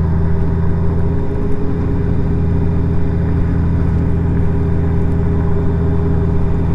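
Honda Gold Wing's flat-six engine running at a steady cruise, with road and wind noise.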